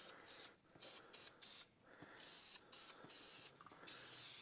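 Aerosol spray can sprayed at a truck's front brake hub in a series of short hissing spurts with brief pauses between them.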